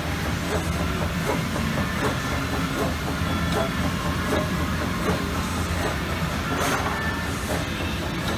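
Amada Pega 345 CNC turret punch standing powered up but not punching: a steady low machine hum with scattered light clicks, and a short hiss about two-thirds of the way through.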